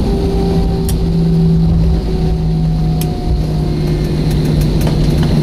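Jet airliner cabin noise just after landing: a loud, steady low rumble with a droning engine hum, broken by two faint clicks, one about a second in and one about three seconds in.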